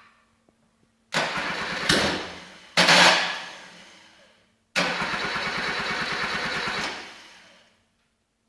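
Rebuilt Suzuki F10A four-cylinder engine being started: three short tries, the first two catching only briefly and dying away, the third running evenly for about two seconds before fading out. It will not keep running on its first start.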